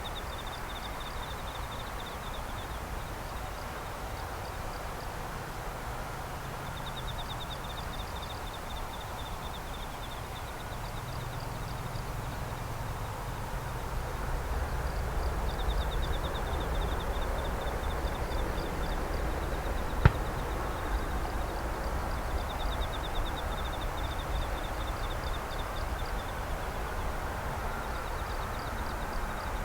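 Night insects, likely crickets, trilling in high, rapidly pulsed bouts of about two seconds, repeating every six or seven seconds, over a low distant engine rumble that swells about halfway through. A single sharp click comes about two-thirds of the way in.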